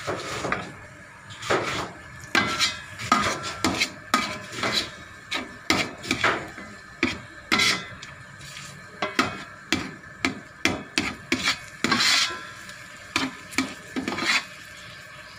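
A metal ladle scraping and knocking against the rice cooker's metal inner pot, in a quick irregular series of strokes, while shallots and garlic are stirred in oil. The strokes stop about a second before the end.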